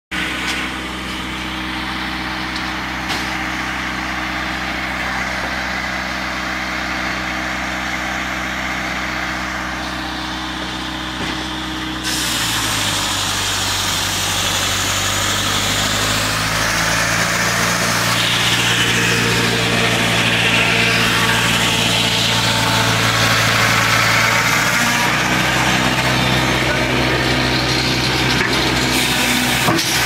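Morgan sawmill machinery running with a steady, constant-pitched hum. About twelve seconds in the sound changes abruptly and becomes louder and harsher, with the mill sawing logs into boards.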